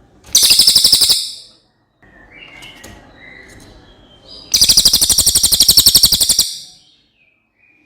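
Cililin bird singing: two loud, high-pitched rapid trills, a short one near the start and a longer one of about two seconds in the middle, with faint chirps between.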